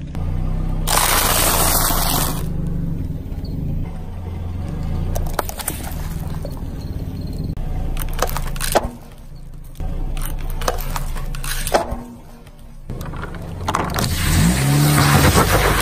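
A car tyre rolling over and crushing things on asphalt, over background music: a rush of spraying liquid near the start, a sharp pop a little past the middle as a foil balloon gives way, and a large plastic juice jug bursting and gushing near the end.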